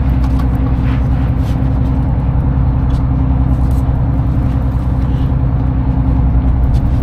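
Charter fishing boat's engine running steadily, a low, even drone.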